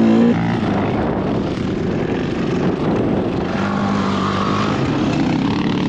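Dirt bike engines running, mixed with a dense rushing noise; a steady engine tone comes up for a second or so past the middle.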